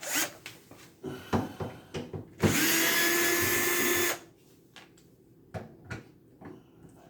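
Power drill running steadily for about two seconds, taking apart a refrigerator to reach its ice maker water valve. Knocks and clicks of handling come before and after it.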